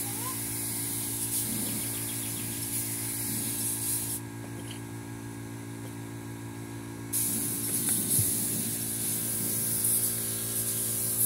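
Air spray gun hissing as sanding sealer is sprayed onto plywood. The hiss stops for about three seconds near the middle and then starts again, over a steady low hum.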